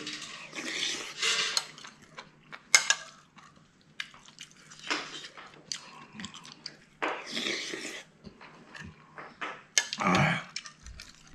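Noodle soup eaten noisily from a spoon: a few long slurps of noodles and broth, with chewing, and sharp clinks of a metal spoon against a ceramic bowl between them.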